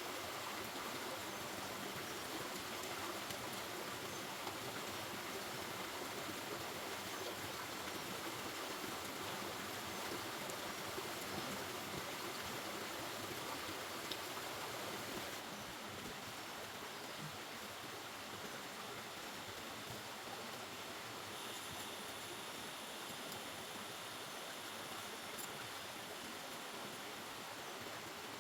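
River water flowing with a steady rushing sound, with a few faint ticks and a change in its tone about halfway through.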